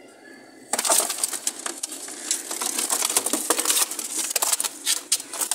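Dense rustling and scraping with rapid clicks as a pigeon is grabbed and handled by hand inside a wooden nest box littered with feathers and droppings, starting suddenly about a second in.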